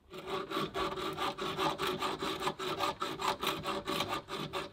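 A hand tool worked against the wooden post and beam of a patio roof frame, making rapid, rhythmic scraping strokes, several a second, with a faint ringing tone under them.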